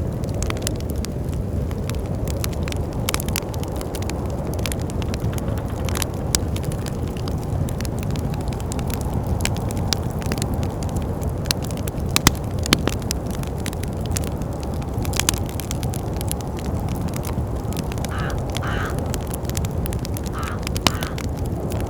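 Wood fire crackling in a fireplace, with frequent sharp pops and snaps over a steady low rumble of wind. Near the end come three short higher-pitched squeaks.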